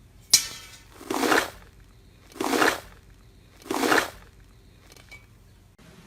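A sharp click, then three crunching crushes about 1.3 s apart, each lasting about half a second, as a crisp material is pressed or squeezed by hand.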